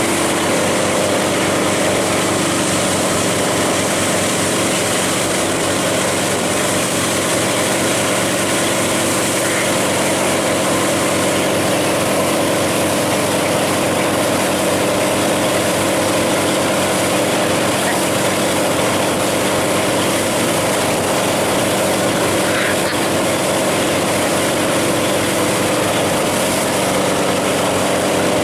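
Motorboat engine running steadily at towing speed, with a constant rush of wind and churning wake water.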